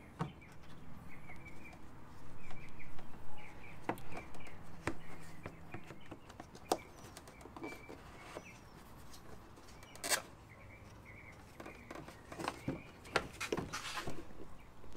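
Hands working on a 2004 Toyota Prius halogen headlight assembly: scattered plastic clicks and knocks as the rubber bulb cover is pressed back on and the bulb connector is pushed on, the sharpest about ten seconds in and two more near the end. A small bird chirps repeatedly in the background.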